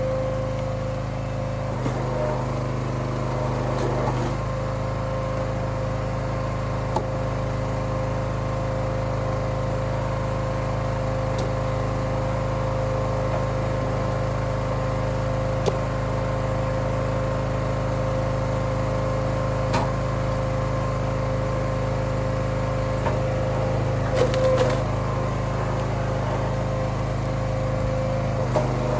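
Log splitter's small gas engine running at a steady speed, with a few faint knocks over it.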